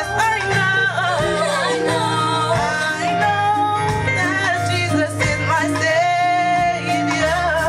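Church praise-and-worship music: voices singing a melody over bass and drums.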